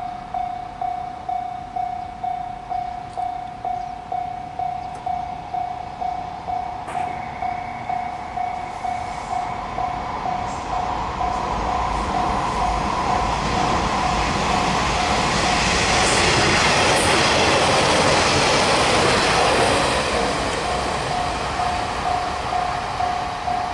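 Railway level-crossing alarm bell ringing in quick, even strokes on one tone. A train passes over the crossing: its rumble builds from about halfway through, drowns out the bell for a few seconds, and fades near the end, leaving the bell ringing again.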